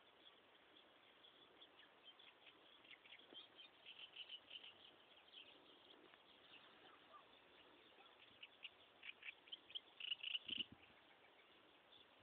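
Quiet field ambience with scattered short, high chirps from small wildlife, bunched about four seconds in and again around ten seconds in.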